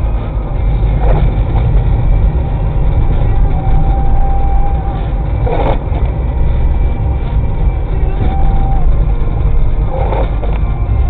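Steady low rumble of a car's engine and tyres on a snow-covered road, heard from inside the cabin, with a few faint knocks.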